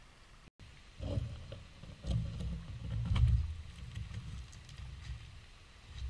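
Footsteps crunching on loose creek gravel, starting about a second in: uneven low thuds with sharp crackling clicks.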